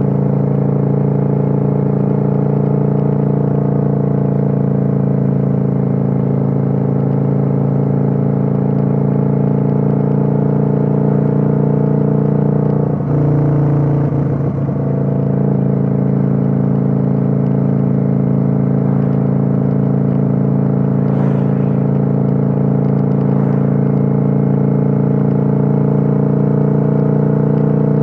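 Kawasaki Vulcan 900's V-twin engine running steadily at cruising speed, heard from on board the motorcycle. About halfway through, the engine note briefly breaks and shifts, then settles back into a steady run.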